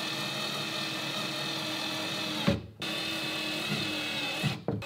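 Cordless drill driving screws through a rubber hinge strip into the lid of a gas bottle box: the motor runs steadily for about two and a half seconds and stops with a sharp knock as the screw seats. It then runs again for about two seconds and stops, starting once more at the very end.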